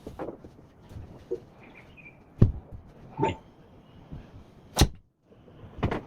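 Golf driver striking balls, two sharp cracks about two and a half seconds apart, the second the louder. The audio is sped up threefold.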